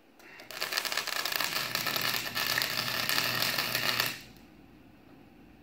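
Electric arc welder's arc crackling steadily while a weld is laid on steel, starting just after the start and cutting off sharply about four seconds later as the arc is broken.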